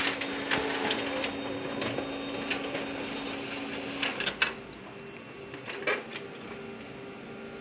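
Canon imageRUNNER 3235i photocopier running a double-sided print job: a steady mechanical hum with repeated clicks of paper feeding through. Part of the hum's low drone drops away about four seconds in.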